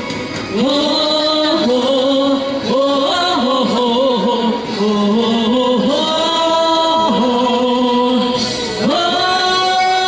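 Man singing a melodic line into a handheld microphone, amplified, with music behind him. A new held note starts near the end.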